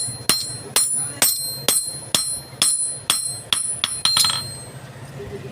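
Hammer striking steel in a steady rhythm, about two blows a second, each leaving a high bell-like ring. The hammering stops about four seconds in, the last ring hanging on briefly.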